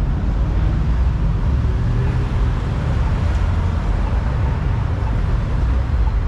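Steady low rumble of cars running slowly along a street, engine and road noise without any single event standing out.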